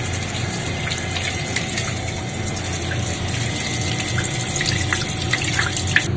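Tap water running steadily and splashing onto a tiled floor, with scratchy strokes of a toothbrush scrubbing a live mud crab's shell to clean out the mud.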